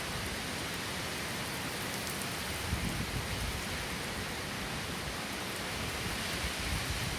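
Heavy typhoon rain falling steadily: a dense, even hiss without let-up.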